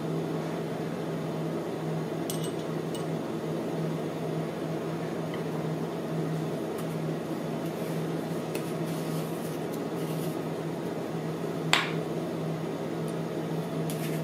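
A steady, low machine hum with a clear low tone, with a faint click or two early and one sharp tap about twelve seconds in.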